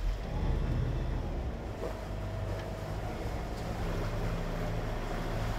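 Catamaran's starboard marine diesel engine revving up as the drive is thrown from reverse straight into forward, to try to set the Gori folding propeller into its overdrive pitch. The engine note rises at once and holds steady, and a thin whine joins it about two seconds in, with water noise around the hull.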